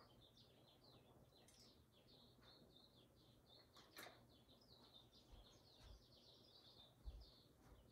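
Near silence: faint, scattered small-bird chirps, with one soft click about four seconds in.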